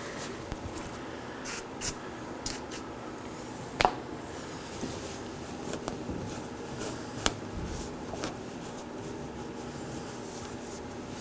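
Quiet wiping and handling sounds with a few sharp clicks and taps, as glass cleaner is applied to clean the mating surface of a new door handle.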